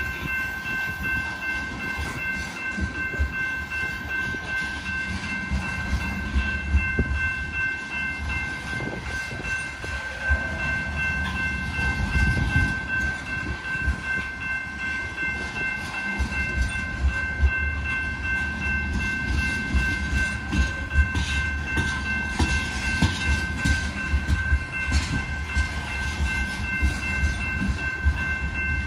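BNSF coal train's aluminum gondola cars rolling slowly past: a steady low rumble of the wheels with irregular clicks and clunks, over a continuous high-pitched squeal that holds one pitch throughout.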